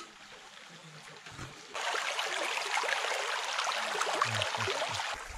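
Shallow, stony creek water rushing and splashing close by, starting suddenly about two seconds in after a quiet stretch, with a few low thumps near the end.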